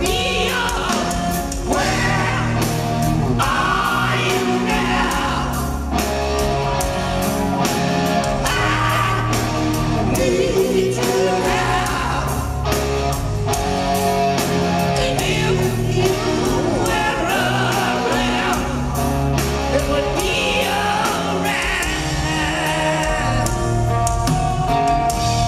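A rock band playing live: a man sings lead into a microphone over a drum kit with cymbals, keeping a steady beat.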